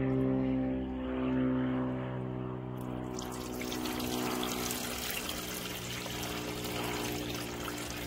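Copper chloride acid solution being poured from a plastic bucket into an old t-shirt used as a filter, a steady splashing pour that grows fuller and brighter about three seconds in.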